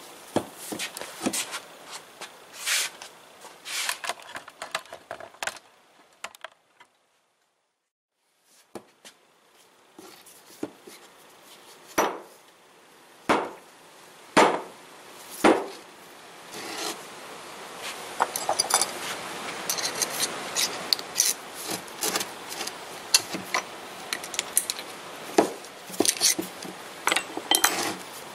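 Steel lathe parts being worked by hand: clinks and scrapes of metal on metal, and a brief dead gap. Several sharp taps about a second apart come next, then a longer stretch of rubbing scrapes and clinks.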